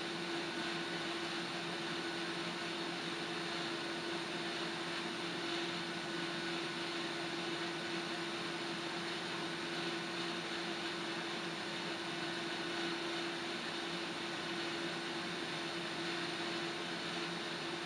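Gas stove burner hissing steadily as it heats a kettle of water, with a steady low hum underneath.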